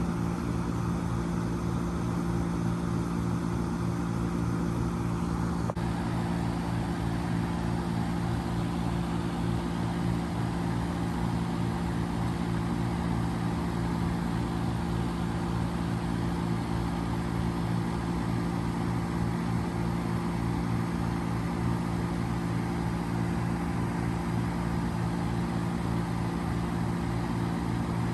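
2005 Trane XL1200 3.5-ton packaged heat pump running steadily in heat mode: a constant low hum from the compressor under the even rush of the fan's airflow.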